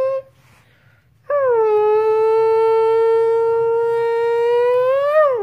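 A person's voice imitating a car engine, a Nissan GT-R R35: a held note cuts off just after the start, a short breath, then one long note of about four seconds that dips in pitch as it begins, holds steady, and climbs near the end before falling off, like a rev.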